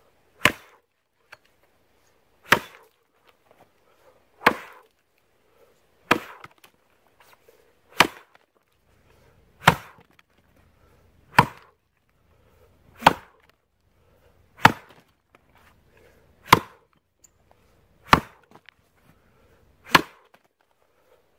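Axe chopping into a log, a dozen single blows in a steady rhythm about every one and three-quarter seconds, each a sharp impact of the steel head biting into the wood.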